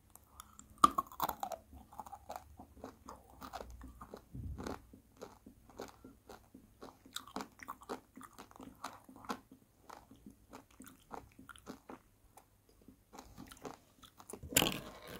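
Close-miked mouth eating a small round sweet: one sharp crunch as it is bitten, about a second in, then steady wet chewing with small clicks. A louder burst of noise comes near the end.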